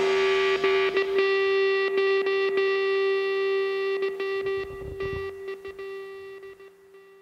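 Background rock music: a held, distorted electric guitar note rings on and fades away, dying out near the end.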